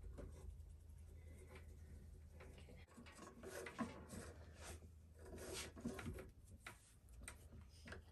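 Faint rustling and light clicks of handspun yarn being pulled through the slots of a wooden rigid heddle loom with a threading hook, with a steady low hum underneath. The handling noises come in short clusters, busiest in the middle.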